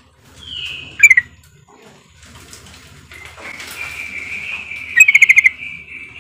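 Female yellow-vented bulbul (trucukan) calling. A short falling note is followed by a loud quick burst about a second in, then a longer run of calls that peaks in a loud rapid chatter about five seconds in.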